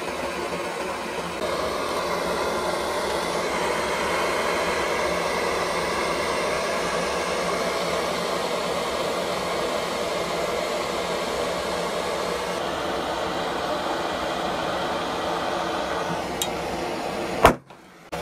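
Handheld butane blowtorch burning with a steady hissing rush of flame. Near the end a single sharp bang, then a brief drop to quiet.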